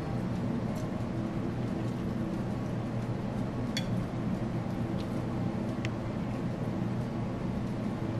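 A steady low hum runs under the whole stretch, with a few faint short clicks of eating: chopsticks and chewing.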